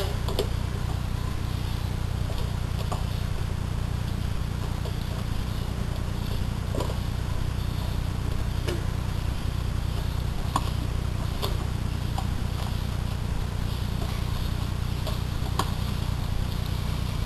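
A steady low hum, with faint short clicks every second or two.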